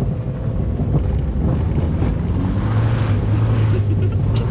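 Mazda MX-5's four-cylinder engine running hard as the car is drifted, louder and steadier in the second half, with wind buffeting the microphone. The engine has a rod knock.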